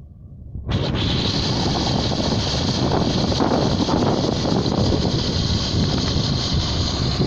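Case IH 2388 Axial-Flow combine harvester running loudly and steadily while harvesting corn, with a hissing, rushing edge; the sound starts abruptly about a second in.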